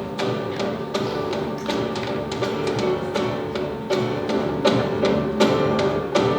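Instrumental music with sustained pitched accompaniment and frequent sharp percussive taps, like a wood block.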